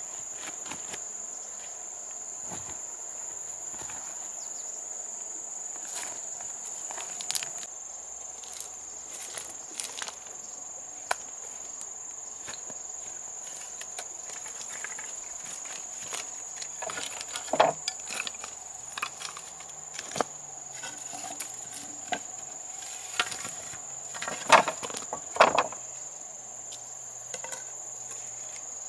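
Steady high-pitched insect chorus droning on one unbroken tone, with scattered clicks and knocks of things being handled, a few of them louder in the second half.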